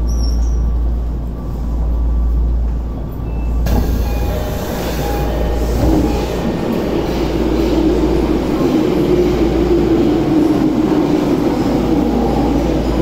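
Tokyo Metro 02 series subway car standing in a station with a steady low hum from its onboard equipment; about four seconds in, the passenger doors slide open and a sudden rush of wider, busier station noise comes in.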